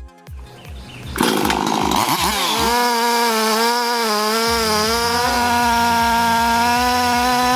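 Chainsaw starting up about a second in, revving and then running at high speed with a steady whine whose pitch dips and wavers.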